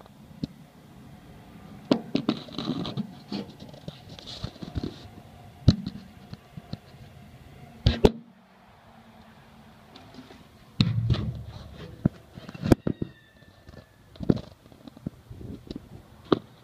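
Handling noise of a phone moving inside an aluminium aircraft wing: irregular knocks, taps and scrapes as it bumps against the ribs and skin, with a short lull in the middle.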